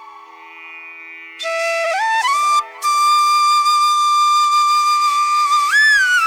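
Background music: a slow solo flute melody over a steady low drone. It enters softly, slides up about two seconds in, and settles into a long held note.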